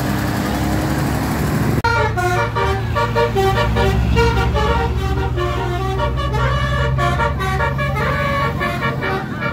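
Bus engine running with a steady drone; about two seconds in, a telolet multi-tone musical horn starts playing a rapid melody of short stepped notes, several at once, over the engine's low hum.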